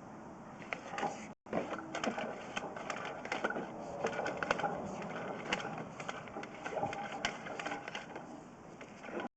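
Sewer inspection camera and its push cable being fed through a 4-inch ABS drain line: irregular clicking, rattling and scraping, with a brief cut-out about a second and a half in.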